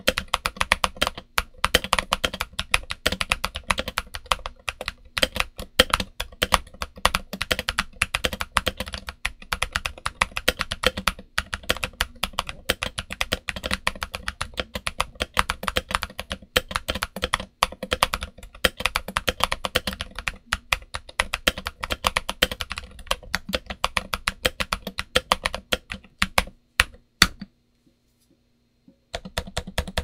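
Redragon K530 mechanical keyboard with Gazzew U4Tx tactile switches, SA-profile ABS keycaps, switch pads and felt, typed on fast and continuously: a dense run of keystrokes. It stops for about two seconds near the end, then starts again.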